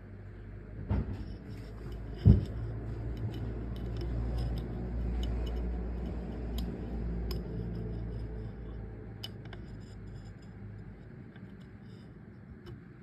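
Handling noise as the microscope and phone are set up: two knocks, the second louder, in the first few seconds, then a low rubbing rumble with scattered small clicks.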